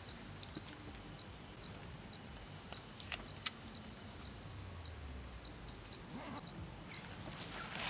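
Night insects: a steady high-pitched trill with a cricket chirping about twice a second over it, and a few faint clicks.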